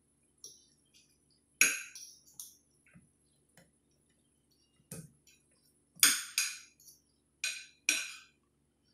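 A metal fork and spoon clinking against a plate while someone eats, about eight sharp clinks in two clusters. The loudest come about a second and a half in and about six seconds in.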